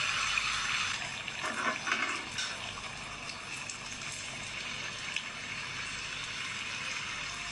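Water running steadily from a kitchen tap, with a few light clinks of dishes about a second and a half to two and a half seconds in.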